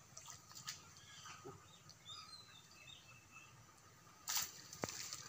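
Faint bird chirps, a few short high calls, against quiet outdoor background. Near the end comes a brief burst of rustling noise with a sharp click.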